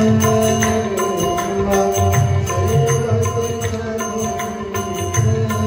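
Music in the style of an Indian devotional chant: sustained melodic notes over a steady beat of short, bright percussion strikes.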